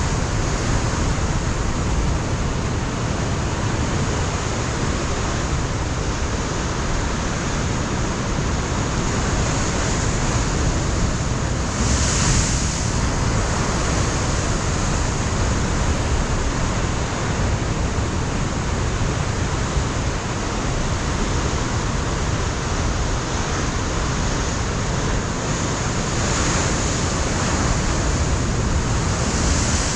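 Ocean surf breaking on a rocky coastline: a continuous wash of waves with wind on the microphone. A wave surges louder about twelve seconds in and again near the end.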